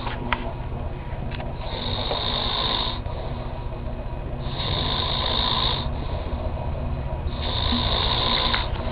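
A man snoring in his sleep: three long snores, each over a second, coming about every three seconds over a steady low hum.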